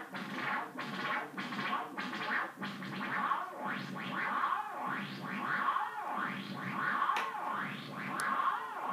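Mogol synthesizer voice driven by a jerk-equation chaos circuit: a buzzy, scratchy tone whose pitch and filter cutoff wander chaotically, sweeping up and down in irregular arches roughly once a second.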